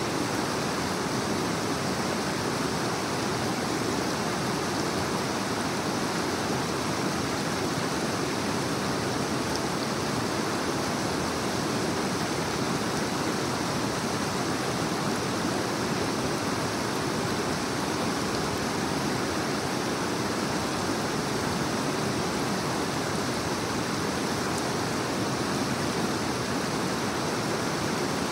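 Creek water rushing over rocks in shallow rapids: a steady, unbroken rush.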